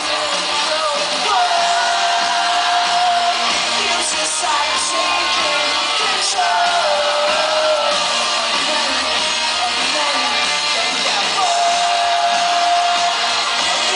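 Live rock band playing loudly: electric guitars, drums and a lead singer holding long sung notes three times.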